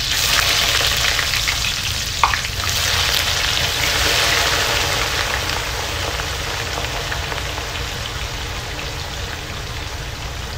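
Sliced red onions dropped into hot oil and frying, a loud sizzling hiss that starts all at once and slowly eases off as they are stirred in the pot. A single knock about two seconds in.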